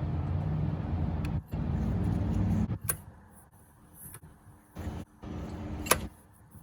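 A power tool on the crankshaft bolt runs in four bursts of about a second each, with a sharp click near the end: the engine is being rotated by hand through two revolutions after a timing chain replacement, to check that it turns freely without valve contact.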